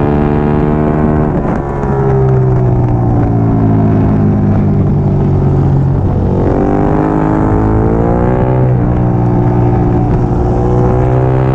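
Triumph Daytona 675R's inline three-cylinder engine at race speed: the revs fall away for a few seconds, then climb, drop sharply at a gear change, and pull steadily again.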